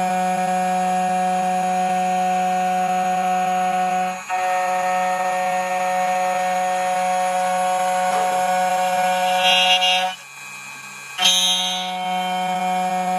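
CNC key cutting machine running with a steady whine while it mills the second side of a copper key blank. The sound dips briefly about four seconds in, stops for about a second near the end, and starts again with a short hiss.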